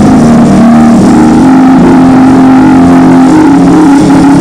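Keyboard holding long, steady chords under congregational prayer, the chord shifting slightly about three seconds in.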